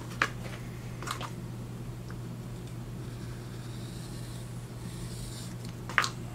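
A few light, sharp clicks of thin laser-cut wooden pieces being picked up and set down on a wooden tabletop, the loudest near the start and again near the end, over a steady low hum.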